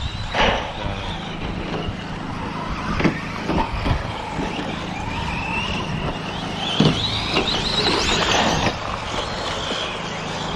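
Electric RC short-course trucks racing on an off-road track: brushless motors whining, one rising in pitch as it accelerates from about halfway in. Several sharp knocks cut through, the loudest about seven seconds in.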